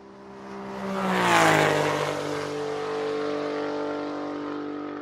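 Intro sound effect of an engine-like drone that swells in and drops in pitch as if passing by about a second and a half in, with a rush of noise at its loudest. After that it runs on at a steady pitch.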